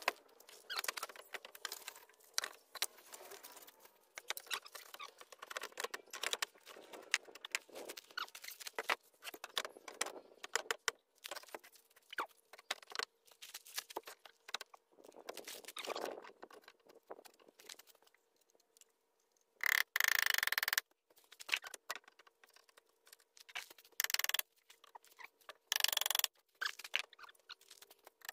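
Concrete blocks being scraped and shoved into place under a wooden deck step. Crunching and rustling in dry leaves and bark mulch, with a few louder, harsh scrapes about twenty seconds in and near the end.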